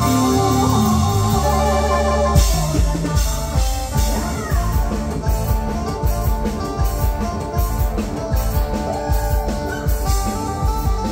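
Live band playing through loudspeakers, with electric guitar and a drum kit. About two seconds in, the drums come in with a steady beat.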